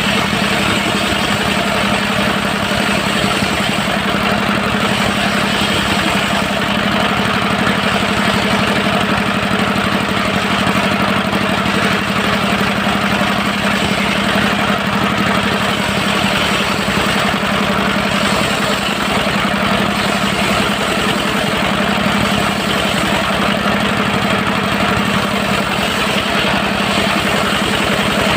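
Dongfeng diesel engine of a mobile circular-saw sawmill running steadily at a constant speed.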